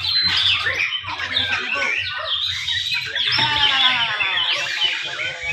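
Several white-rumped shamas (murai batu) singing at once in dense, overlapping whistles and chattering phrases, with a harsh buzzy note a little past the middle.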